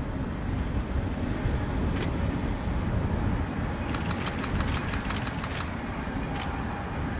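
DB class 218 diesel-hydraulic locomotive hauling a regional train past at a distance: a steady low engine rumble, with a rapid run of clicks from the wheels on the rails about four seconds in.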